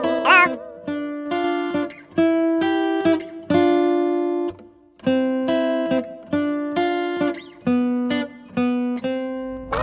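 Background music: a plucked guitar melody played one note at a time, each note ringing out and fading before the next.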